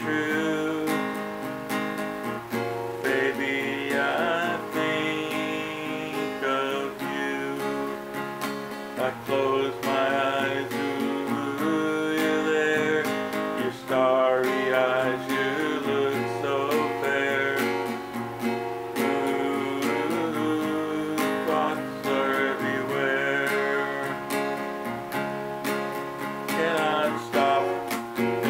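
Acoustic guitar strummed steadily, with a capo on the neck, and a man singing along.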